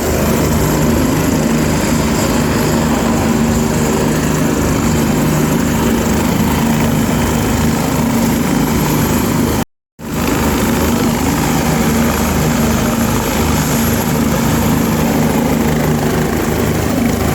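Helicopter running, a loud steady mix of engine whine and rotor noise. The sound cuts out completely for a moment about ten seconds in, then resumes unchanged.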